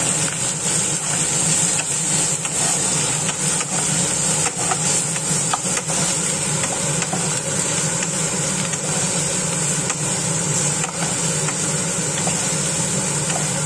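Sliced onion, carrot and spring onion sizzling in oil in a nonstick wok, stirred with a wooden spatula that scrapes and clicks against the pan now and then. A steady low hum runs underneath.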